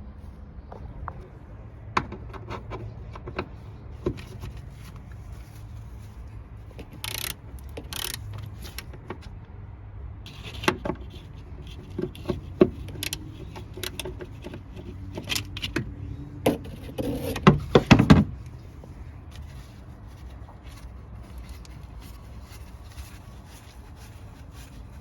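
Scattered metallic clicks, clinks and knocks of a socket wrench loosening the bolts of a truck's under-dash access panel, with a dense clatter of rattling about three quarters of the way through.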